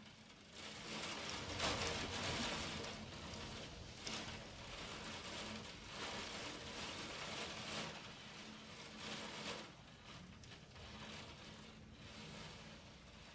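Hail pelting down against the window and building, a dense rattle of countless small hits that swells and eases in gusts, loudest about two seconds in and tapering off near the end.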